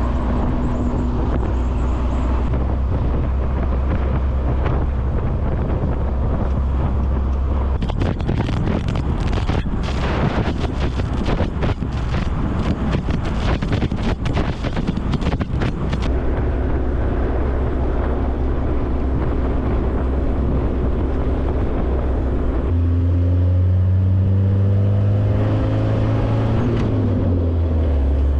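A motor vehicle's engine running with a steady low note. A dense run of clicks and knocks comes in for several seconds midway, and near the end the engine note climbs and shifts in steps as it revs.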